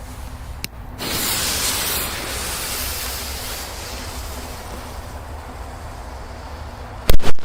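Steady hiss of burning pyrotechnics in a hole, starting about a second in, then two loud firecracker bangs in quick succession near the end.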